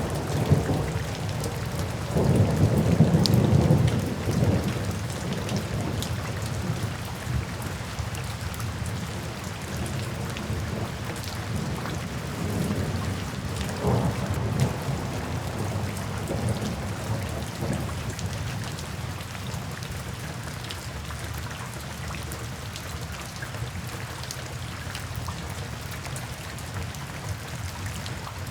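Steady rain falling with low rolls of thunder: the loudest rumble swells about two seconds in and lasts a couple of seconds, a weaker one comes around the middle, and the last part is rain alone.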